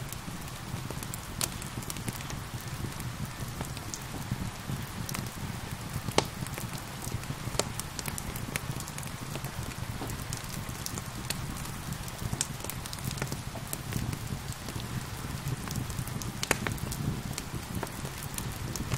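Wood fire crackling, with sharp irregular pops, over a steady hiss of rain.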